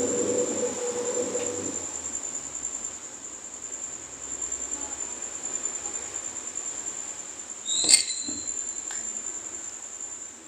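Crickets trilling steadily with one continuous high chirr. About eight seconds in there is a single sharp clink that rings briefly.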